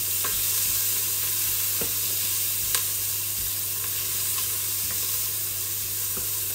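Sliced onions sizzling in hot oil in a stainless steel pot while being stirred with a wooden spoon, with a few light knocks of the spoon against the pot. A steady low hum runs underneath.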